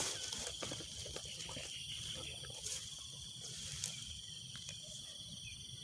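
Steady, high-pitched chirring of crickets, with a few faint clicks and rustles of footsteps in the grass.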